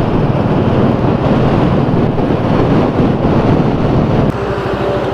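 Royal Enfield Bullet's single-cylinder engine running at highway cruising speed, heavy wind on the microphone. About four seconds in, the wind noise drops a little and the engine's regular beat comes through more plainly.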